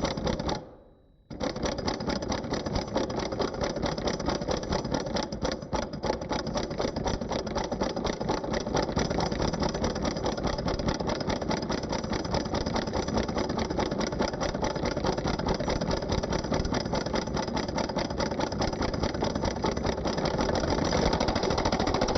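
Impact driver hammering as it drives a screw: its internal hammer strikes the anvil in a fast, rattling run of impacts, which is the normal sound of the tool delivering torque. It stops briefly about a second in, then runs on steadily.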